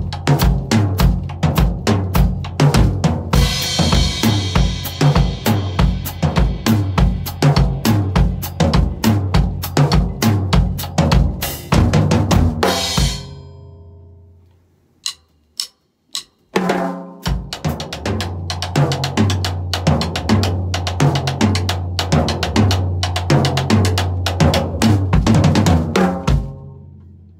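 Drum kit playing a songo groove with bass drum, snare and hi-hat, a cymbal wash joining about three seconds in. Around the middle the groove fades out for a few seconds, broken by two single hits, then starts again and fades near the end.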